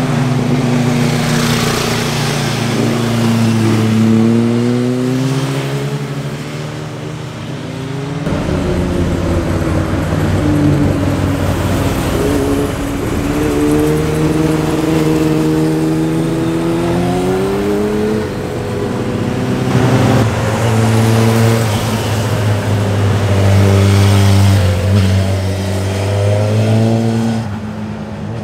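Several sport motorcycles pass one after another through a tight bend. Their engine notes glide down and then climb as each one rolls through the corner and accelerates away, and two or more bikes are often heard at once.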